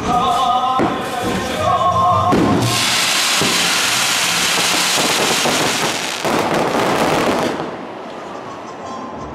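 Fireworks display: shells going off, then a loud, dense crackling lasting about five seconds that dies down near the end. Music plays underneath.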